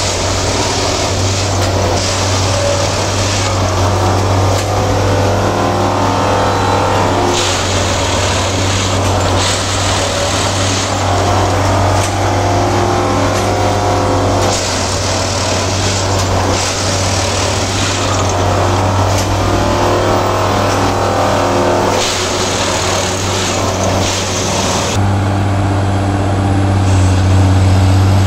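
Plasser 09-3X track tamping machine at work: its engine and machinery run steadily with a deep hum. Paired bursts of hissing noise recur every several seconds as it goes through its working cycle. About 25 seconds in, the hissing stops and only the steady, deeper engine tone is left.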